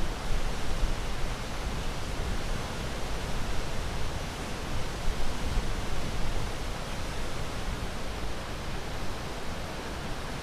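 Steady rushing of ocean surf, heard as an even wash of noise without distinct wave breaks.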